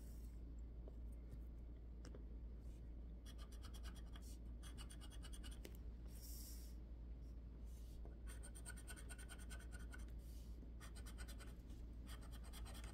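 A scratch-off lottery card being scratched with a hand scraper: faint, quick scratching strokes in three bouts of a second or two each, with short pauses between.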